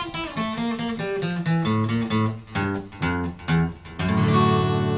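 Acoustic guitar played alone: a picked run of single notes and short phrases, then about four seconds in a final strummed chord left ringing and slowly dying away, closing the song.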